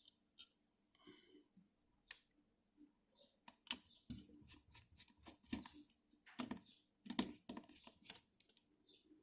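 Clicks, taps and light scraping of small plastic and metal parts being handled and pried out while the cooling fan of an Nvidia Shield TV is being removed. A few faint clicks at first, then from about four seconds in a quicker run of sharper clicks, roughly two a second.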